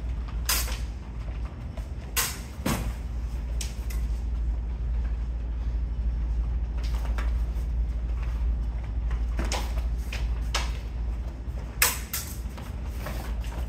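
Scattered sharp clacks and knocks from several pairs of fencers sparring with steel practice sabers and side swords, with blade contact and footwork on foam mats, the loudest knock near the end. A steady low hum runs underneath.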